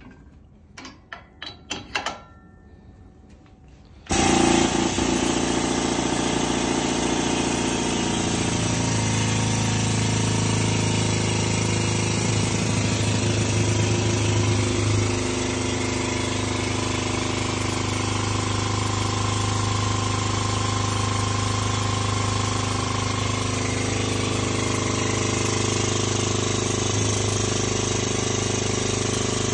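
A few light metal clicks in the first couple of seconds. Then, about four seconds in, an air-over-hydraulic pump starts suddenly and runs steadily and loudly, driving the tube bender's hydraulic ram through a bend in thick-walled 42.4 mm steel tube.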